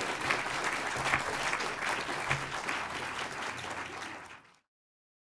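Audience applauding, a dense patter of clapping that fades and cuts off to silence about four and a half seconds in.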